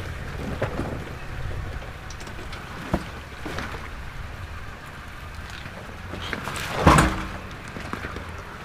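Toyota 4Runner moving along an off-road trail: a steady low rumble with a few scattered knocks and one louder bang about seven seconds in.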